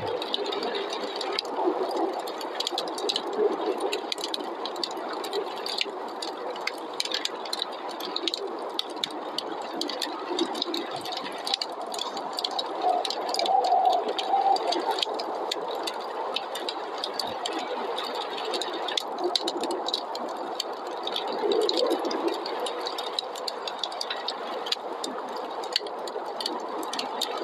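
Wood fire in a fireplace crackling, with many small irregular pops, over a steady rushing noise of snowstorm wind that swells and eases slowly.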